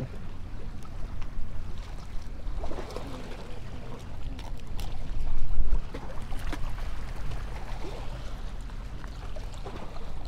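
Wind buffeting the microphone over water lapping against jetty rocks, a steady low rumble that swells louder for a moment about five and a half seconds in.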